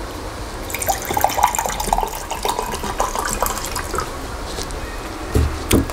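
Water being poured from a plastic pitcher into a paper cup, splashing for about three seconds, then two dull thumps near the end.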